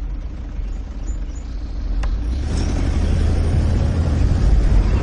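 A car on the road: a steady low engine and road rumble, then a sharp click about two seconds in, after which an SUV's tyre and engine noise grows louder as it approaches.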